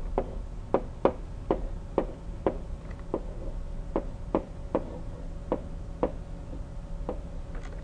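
Pen stylus tapping and clicking on a tablet screen during handwriting: a string of short, light, sharp taps about two a second, unevenly spaced, over a faint steady hum.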